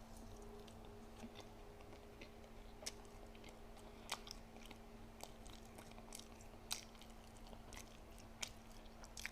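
Faint chewing close to the microphone, with scattered small mouth clicks, over a low steady hum.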